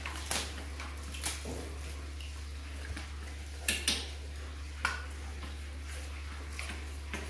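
A few short, sharp clicks and taps of milk containers being handled while baby monkeys drink, over a steady low hum.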